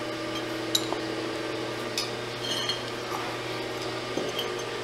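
A few sharp metallic clinks and knocks as cast-metal pottery wheel parts are handled and set down, with a clay brick among them, over a steady background hum.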